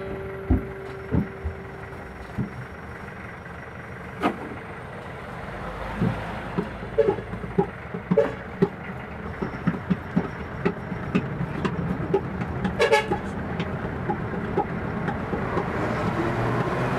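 Jeepney heard from inside the passenger cabin: a steady tone for about two seconds at the start, then many sharp clicks and knocks, over engine and road noise that grows louder in the second half.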